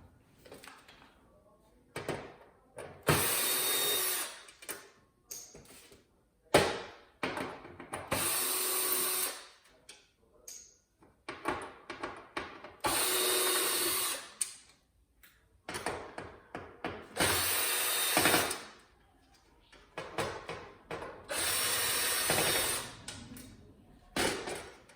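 Power drill driving out screws in five short runs of about a second and a half each, a steady motor whine that starts and stops. Between the runs come light clicks and knocks of screws and parts being handled.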